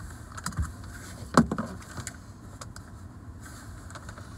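Paper takeout bag rustling and crinkling as food and napkins are taken out of it, with scattered clicks and one sharper knock about a second and a half in.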